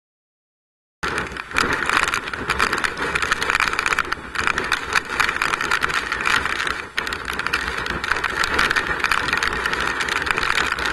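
Hurricane-driven rain and wind lashing a vehicle's windshield and body, heard from inside the vehicle: a loud, dense hiss full of sharp spatters. It starts abruptly about a second in and cuts off suddenly at the end.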